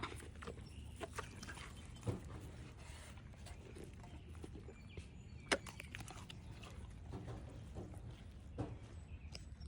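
Dog eating raw food: wet chewing and crunching with a few sharper cracks, about two, five and a half and eight and a half seconds in, over a low, steady rumbling noise that the uploader likens to a chainsaw.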